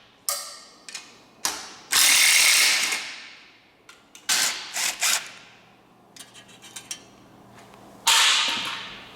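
Ratchet wrench working bolts on a V8 engine block, in bursts of rapid clicking with short pauses between, and some metal clatter.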